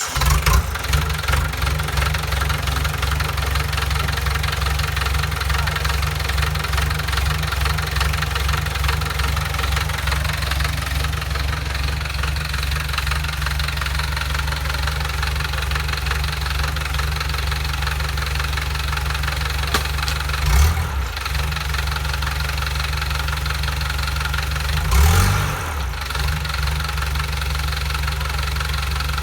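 Bulldozer's diesel engine running at idle with a steady pulsing beat, with two brief louder surges about twenty and twenty-five seconds in.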